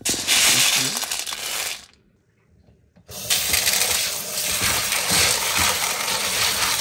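A hand stirring dry kala chana (black chickpeas) in a bowl, a dry rattle lasting about a second and a half. After a short gap, tap water runs steadily into the bowl over the chickpeas to wash them.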